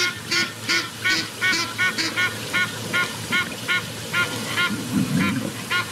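A bird calling in a long, regular series of short calls, about two to three a second, spacing out a little toward the end.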